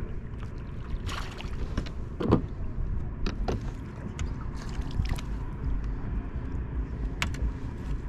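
Wind buffeting the microphone over water lapping against a bass boat's hull, with a handful of short splashes and clicks as a small bass is reeled in and swung aboard.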